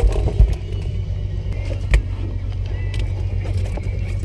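Dull thumps of a striped bass flopping and being held down on a fiberglass boat deck, the strongest just at the start and about two seconds in, over a steady low hum.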